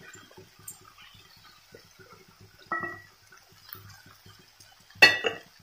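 A spatula stirring fried paneer cubes through thick masala in a kadai: faint soft scrapes and taps, with a sharp knock near the end.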